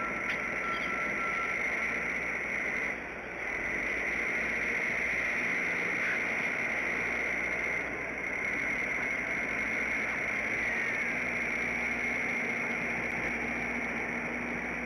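Steady outdoor background noise on the nest camera's microphone: a constant hiss with a high, even band running through it, and no eagle calls standing out.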